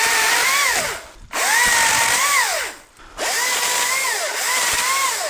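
ECHO DCS-2500T battery top-handle chainsaw cutting small wood in three bursts: at each trigger pull the electric motor's whine rises, holds steady through the cut, and falls away on release.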